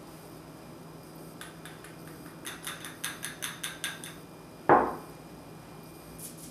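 A small glass bowl tapped against the rim of a small metal mesh strainer: a quick run of light clicks, about six a second, knocking Oreo cookie crumbs into it. Then one loud knock as the glass bowl is set down on the table.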